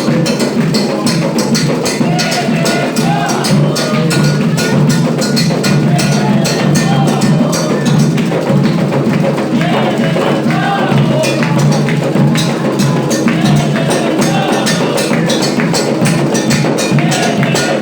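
Ilú drums, double-headed barrel drums of Afro-Brazilian religious music, playing a fast, steady rhythm with sharp clicking hand percussion, while voices sing over it.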